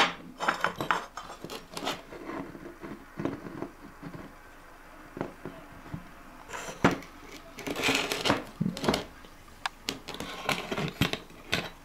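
Opened metal case of a small laser projector being handled and turned over on a wooden table: scattered light clicks, knocks and rattles, busier about two-thirds of the way in.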